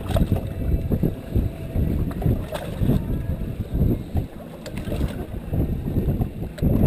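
Choppy water slapping against a small boat's hull, with wind buffeting the microphone in an uneven, low rumble.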